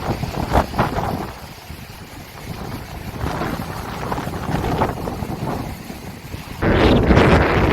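Wind gusting over the sea and buffeting the microphone, rising and falling in strength, then abruptly much louder near the end.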